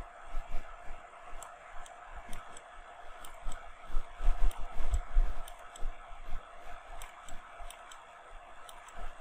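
Irregular quick clicks and taps of computer input devices over a steady hum, with a few dull low thumps about four to five seconds in.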